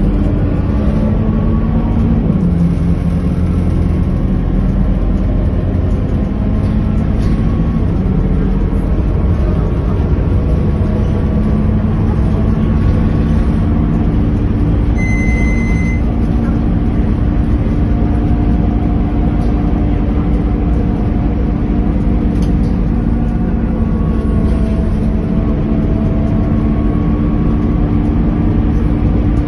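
Scania K230UB city bus's five-cylinder diesel engine and drivetrain running steadily on the move, heard from inside the passenger cabin as a low rumble and hum with a faint whine that rises and falls in pitch. A short high beep sounds once about halfway through.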